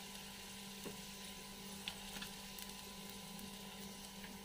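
Faint sizzle of chicken seekh kababs shallow-frying in oil in a flat pan, with a few light clicks of a fork against the pan and a steady low hum underneath.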